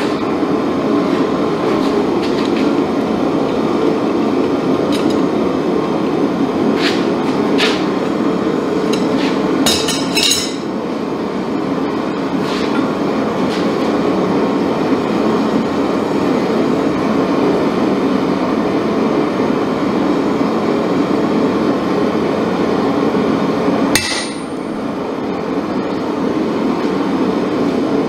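A steady roar runs underneath scattered light metallic clinks of the steel damascus blade being handled on the anvil. About 24 seconds in comes one sharp, ringing clang of metal on the anvil.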